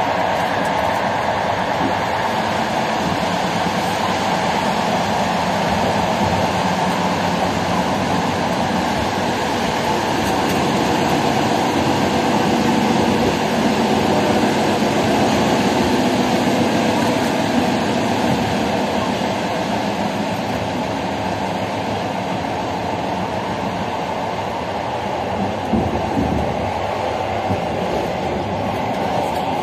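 Passenger train rolling along, heard from inside a carriage: a steady rumble and rush of wheels on rail that swells a little midway, with a few short knocks near the end.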